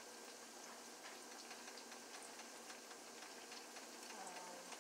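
Beignets frying in a skillet of hot oil: a faint, steady sizzle with scattered light crackles.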